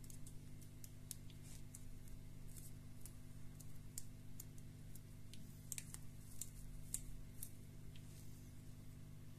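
Faint small plastic clicks and taps, scattered irregularly, as the plastic housing of a Bluetooth headset is handled and pressed together, over a steady low electrical hum.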